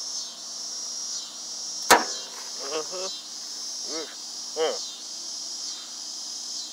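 Steady high-pitched insect chorus, with one sharp smack about two seconds in and a few short vocal sounds after it.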